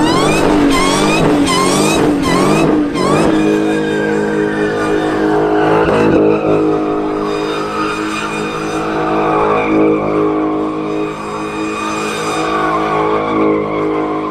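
Car engine revving hard, its pitch surging up several times in quick succession over the first three seconds, then held at high revs with tyres squealing.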